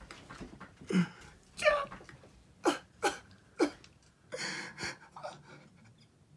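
A person's breathy gasps and whimpers: a string of short, falling vocal sounds, with a longer breathy exhale about four and a half seconds in.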